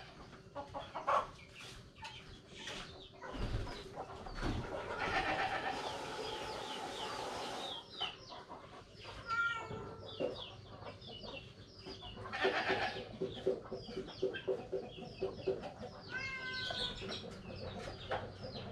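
Chickens clucking in a run of short repeated notes, with a cat meowing a few times near the end.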